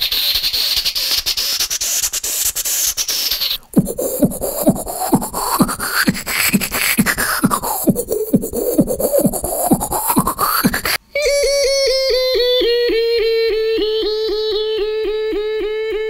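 A beatboxer making three vocal sound effects in a row. First a hissing noise that sweeps up and back down. After a short break, low rhythmic pulses at about three a second under a pitch that rises and falls twice. Then a buzzy, steady-pitched tone that pulses about four times a second.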